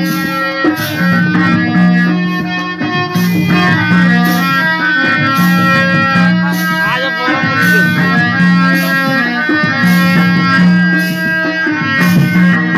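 Instrumental break of a Kurmali Karam jhumur song: melodic instruments over a steady, repeating drum rhythm, with no singing.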